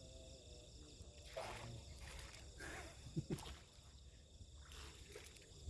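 Night insects chirring in steady high tones, with a few soft swishing sounds and light knocks over them.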